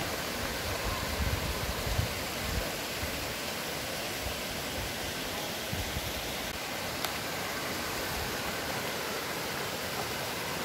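Steady rush of water flowing over the rocks of a shallow mountain stream, with a few low bumps in the first couple of seconds.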